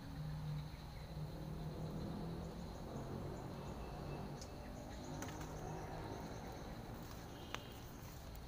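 Wetland and thicket ambience: a steady high insect drone with faint high chirping calls, a low hum over the first few seconds, and a couple of sharp clicks in the second half.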